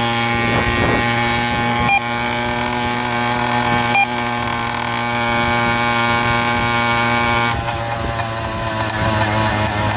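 Small engine of a motorized bicycle running steadily under way, with two short clicks about two and four seconds in. About three-quarters through the engine note eases off slightly and starts to waver.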